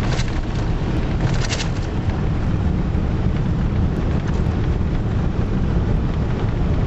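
Road noise heard inside a pickup truck's cab while driving on a gravel road: a steady low rumble of engine and tyres. There are a few short crackles early on, at the start and about a second and a half in.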